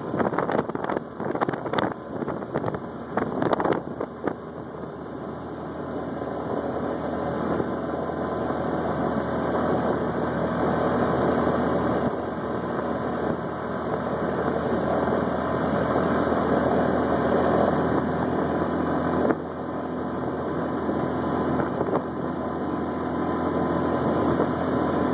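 Small engine of a three-wheeled open scooter-car running on the road, with wind buffeting the microphone. Gusty at first, the sound grows louder over the next several seconds and then runs steadily.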